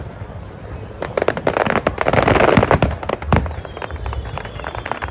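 Fireworks display: a rapid run of bangs and crackling starts about a second in and is densest around two to three seconds. A single loud bang comes near three and a half seconds, followed by lighter, quick crackling and a faint high whistle.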